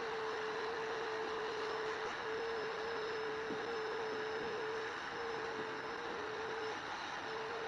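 A small electric motor running steadily with a rushing-air hiss and a steady whine, which drops out briefly a couple of times.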